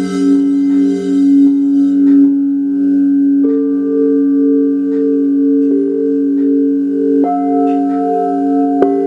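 Several singing bowls ringing together in long, overlapping tones that waver slowly. A new bowl note comes in about a third of the way through and another a little after two thirds.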